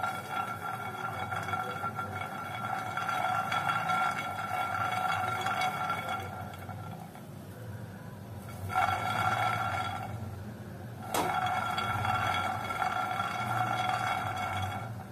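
A nonstick pan of peanuts being shaken back and forth on a gas stove's grate, the metal scraping with a steady high ringing tone. The tone breaks off twice, around seven and ten seconds in, and there is a sharp knock just after eleven seconds.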